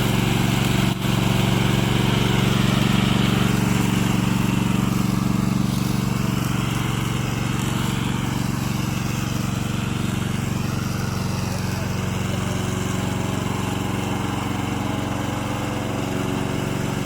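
Remote-control lawn mower's engine running at a steady speed.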